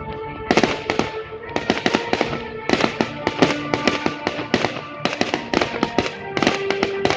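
Fireworks going off in a rapid run of sharp bangs and crackles, several a second, over music with held notes.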